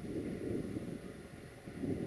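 Low rumble of a Sulzer-engined 060-DA (LDE2100) diesel-electric locomotive moving slowly, mixed with wind buffeting the microphone; it grows louder near the end.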